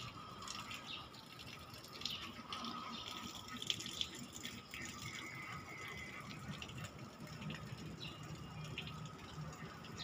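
Faint outdoor ambience with scattered short bird chirps and one briefly held whistled note near the middle, over a thin steady high hum.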